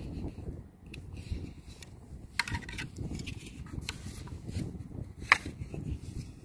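Wind rumbling on the microphone, with scattered light clicks and taps; the sharpest click comes about five seconds in.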